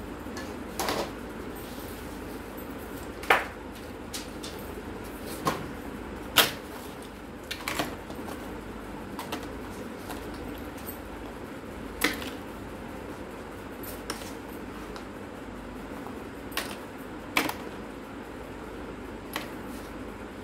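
Small screws and loose parts from a dismantled camera being gathered off a workbench and dropped into a clear plastic jar: about a dozen scattered clicks and clinks at irregular intervals, over a steady background hum.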